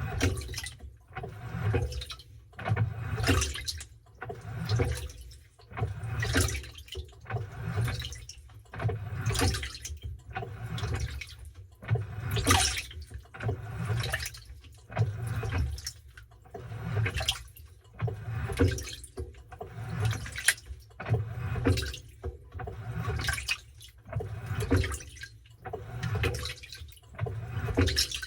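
Washing machine washing a load of towels: water and wet towels sloshing in surges about every second or so, with a low rumble of the machine underneath.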